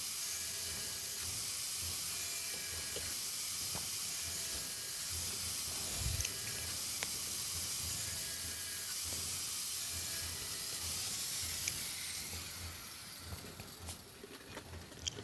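Hand-held angle grinder running against the rim of a plastic paint bucket, cutting small slots into it: a steady high hiss that fades out about twelve seconds in.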